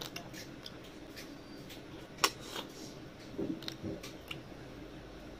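Close-up eating of river snails by hand: small irregular clicks of snail shells against each other and the plate, with chewing, and one sharp shell click a little over two seconds in.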